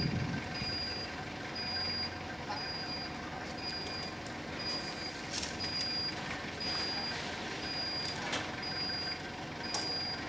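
A forklift's warning beeper repeats a steady high beep about one and a half times a second over a running engine, with a few sharp metallic knocks.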